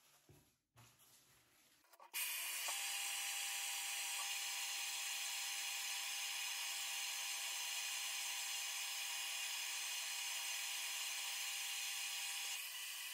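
Hair dryer switched on about two seconds in, then running steadily with a thin whine over the rush of air, drying wet hair strands; it drops a little in level near the end.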